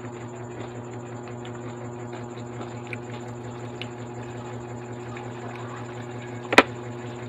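Steady low hum with faint chewing and mouth clicks over it, and one sharp knock about six and a half seconds in.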